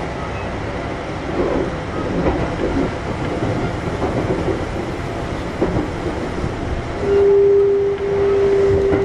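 Kintetsu 1021-series electric train running, heard from inside the car: a steady rumble with irregular knocks and clatter from the wheels. About seven seconds in, a loud whine at one steady pitch begins and holds.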